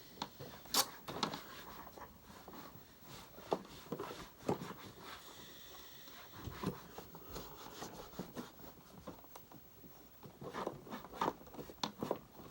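A cloth wiping and rubbing over the plastic housing of an upright vacuum cleaner, with scattered light clicks and knocks as the housing is handled. The sharpest click comes a little under a second in.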